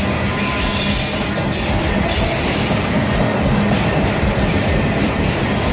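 Freight train of enclosed autorack cars rolling past, its steel wheels on the rails making a steady, loud rumble.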